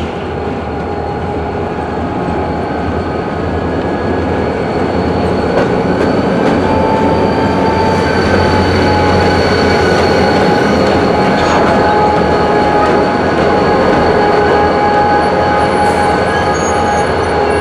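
Freight train rolling through a rail yard, its steel wheels squealing with several steady high tones over the running noise, growing louder over the first few seconds.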